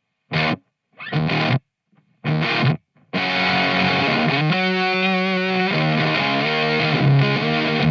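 Electric guitar with humbuckers played through a Teisco Fuzz pedal. It starts with short, chopped fuzzed stabs that the pedal's gate cuts off sharply to silence. About three seconds in it moves into continuous fuzzy playing with a long held note.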